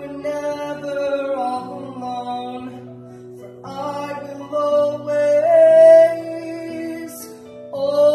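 A man singing a slow ballad to Technics electronic keyboard accompaniment. He holds long notes with vibrato in two phrases, with a short break about three and a half seconds in, and begins a new phrase near the end over sustained keyboard chords.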